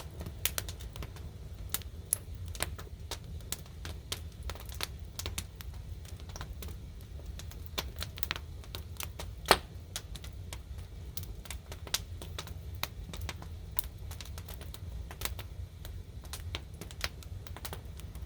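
Burning firewood crackling and popping in irregular sharp snaps over a low steady rumble, with one louder pop about halfway through.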